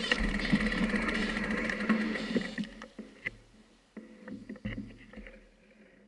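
Mountain bike rolling along a gravel track: tyre noise on the loose stones with scattered knocks and rattles from the bike. It gets quieter after a couple of seconds and dies away near the end.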